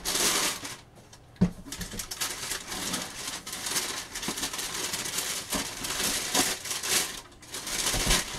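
Cardboard shoe boxes and their paper being handled, rustling and knocking as sneakers are pulled out of boxes on a shelf, with a sharp knock about a second and a half in.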